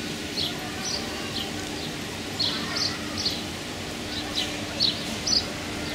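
Small birds chirping: short high chirps, often in pairs, every half second or so, over a steady low hum.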